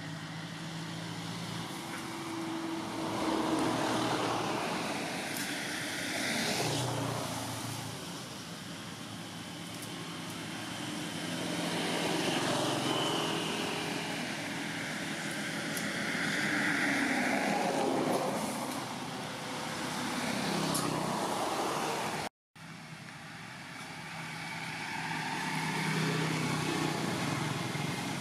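Road traffic passing by, one vehicle after another, the noise swelling and fading every few seconds. The sound drops out completely for a moment about three-quarters of the way through.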